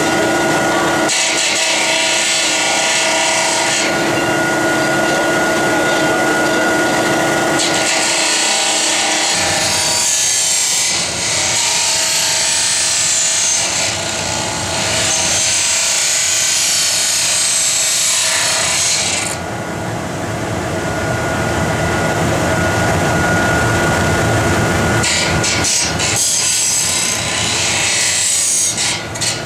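Abrasive cut-off wheel grinding into a metal foundry casting: a loud, gritty hiss in long stretches over the steady whine of the spinning wheel, easing off about two-thirds of the way through.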